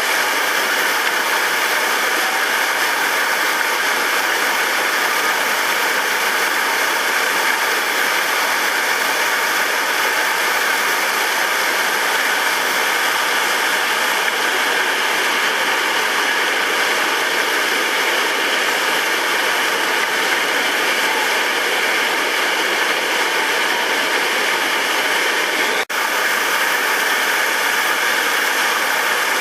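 Loud, steady rush of whitewater rapids pouring over boulders, briefly cut off about four seconds before the end.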